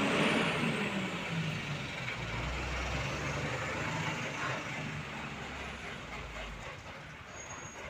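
Iveco fire truck's diesel engine idling with a steady low rumble. A short rushing noise right at the start is the loudest moment.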